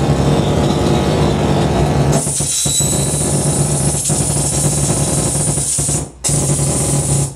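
Loud live electronic noise music run through a small mixer and a hand-held microphone: a dense buzzing wash over a steady low drone, with a bright high hiss coming in about two seconds in and the sound cutting out for a moment near six seconds.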